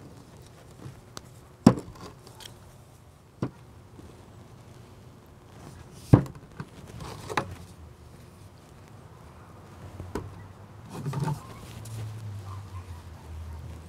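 White PVC pipe and caps being handled while the caps are cemented onto the pipe ends: about six sharp plastic knocks a few seconds apart as pieces are set down on the stone tabletop, with faint handling rustle between them.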